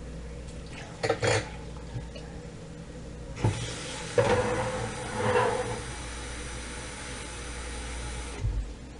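Kitchen tap running for about five seconds, switching on and off abruptly. There are a few knocks and a clatter of kitchenware before and just after it starts.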